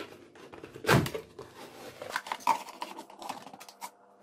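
Clear plastic drink bottle being handled, its cut-off bottom pressed into the cut body: irregular light clicks and crackles of thin plastic, with one sharper click about a second in.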